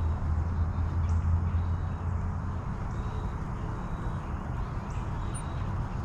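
Backyard ambience: a steady low rumble, strongest in the first two seconds, with a few faint, brief bird chirps now and then.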